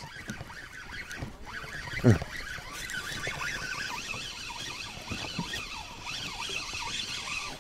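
Birds calling, many overlapping wavering high calls, with a single short falling low sound about two seconds in.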